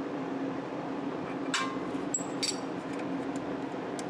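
Wrench on the rocker-arm set nut of a Honda HRS21 mower engine, giving a few light metallic clinks with a short ring near the middle as the lock nut is tightened after setting the exhaust valve clearance. A steady low hum runs underneath.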